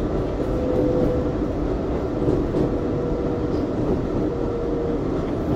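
R142A subway car running on the rails, heard from inside the car: a steady, even rumble of wheels and car, with a faint held tone from about half a second in until shortly before the end.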